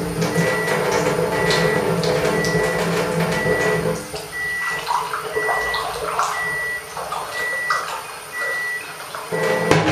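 Water ionizer running and dispensing water, with a steady hum and a short high beep about once a second. The hum drops out about four seconds in and returns near the end, and water splashes into a glass while it is off.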